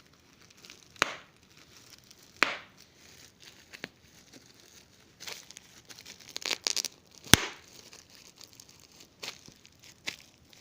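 Large-bubble bubble wrap being popped: sharp single pops at irregular intervals amid crinkling of the plastic, with a quick run of pops past the middle and the loudest pop about two-thirds of the way through.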